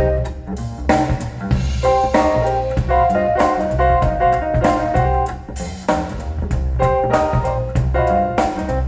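Blues-jazz style music with plucked guitar notes over a steady bass line and a drum kit, played back through loudspeakers for a sound demo.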